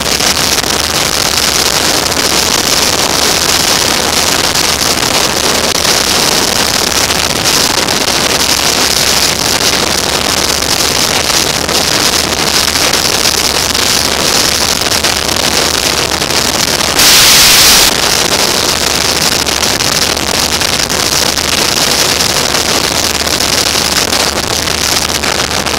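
Wind rushing over the microphone of a moving motorcycle, with steady engine and road noise underneath. About seventeen seconds in, a louder rush of air lasts about a second.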